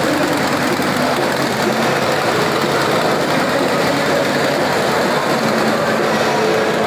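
Custom Harley-Davidson's V-twin engine idling steadily.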